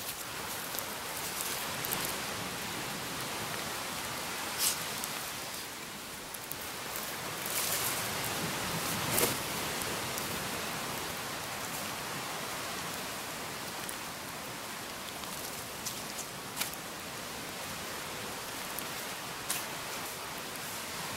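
Small campfire of burning coconut husk crackling over a steady hiss, with a few sharp pops.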